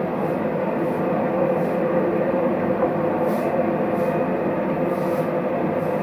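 Cricket stadium crowd giving a long standing ovation after a century, a steady roar of applause and cheering.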